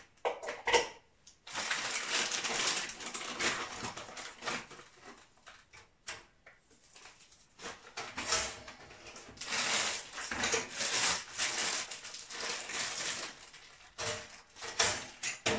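Plastic bread bag rustling and crinkling in stretches as it is handled, with a few light clicks and knocks on the kitchen counter near the start.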